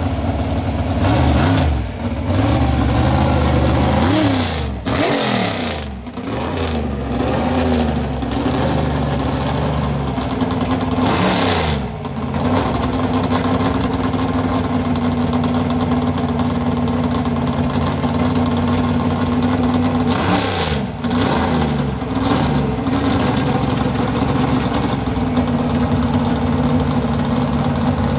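The 283 cubic-inch small-block V8 of a 1957 Corvette drag car at the starting line: it is blipped up and down several times and, between the blips, held at a steady speed for long stretches before launch.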